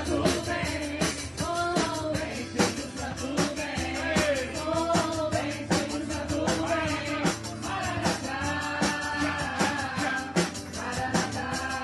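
Upbeat worship song played by a band with a drum kit, with singers' voices carrying the melody over a steady beat.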